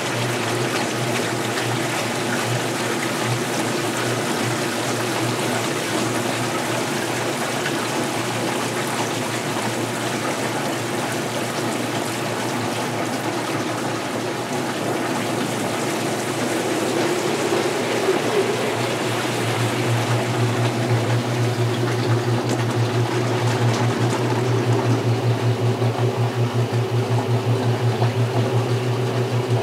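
Water running and splashing into the tub of a restored 1978 Maytag LA806 top-load washer, over a steady low hum. About two-thirds of the way through, the hum grows louder and takes on a steady rhythmic pulse.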